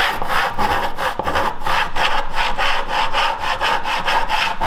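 Western back saw cutting through a board in quick, even strokes, a steady rasp of teeth in wood; it cuts on the push stroke.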